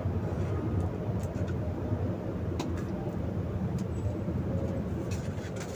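Steady low background rumble, with a few faint clicks and crinkles of a small plastic sauce packet being squeezed and handled.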